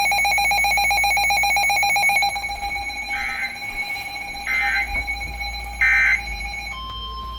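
Emergency alert tones announcing a tornado warning. A loud pulsing electronic alarm tone runs for about two seconds, then come three short chirping bursts, and near the end a single steady alert tone begins.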